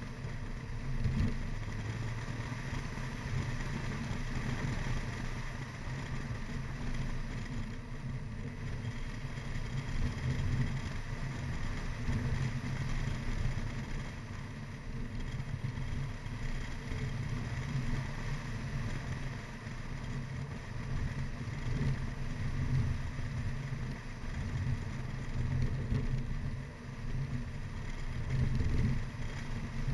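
Mini Cooper R55 Clubman driving briskly up a winding mountain road: a low, unsteady rumble of engine and road noise that swells and eases as the car accelerates and slows through the bends.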